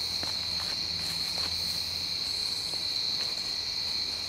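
Night insect chorus of crickets, a steady high-pitched trill, with a few faint ticks now and then.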